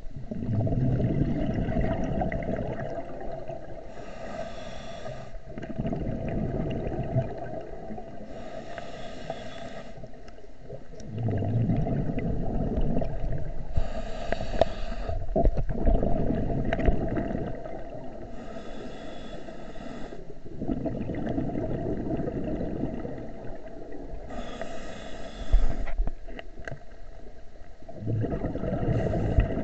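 A scuba diver's regulator breathing underwater: a few seconds of rumbling exhaled bubbles, then a short hiss of inhalation, repeating about every five seconds.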